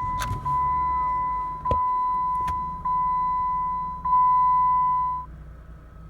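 Jeep Compass dashboard warning chime sounding as the ignition is switched back on: a steady electronic tone that repeats about once a second and stops about five seconds in. A few sharp clicks of the key and ignition come in the first few seconds.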